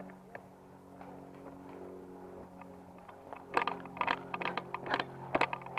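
A loose camera mount rattling and clattering with footsteps crunching through woodland undergrowth as the wearer moves off at pace. The rapid, irregular clattering starts about three and a half seconds in, over a faint steady hum.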